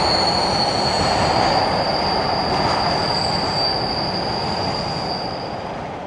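Freight train's wheels squealing on a curve: a steady high-pitched squeal over the rumble of tank cars rolling past. The squeal dies away about five seconds in, and the rumble fades out at the end.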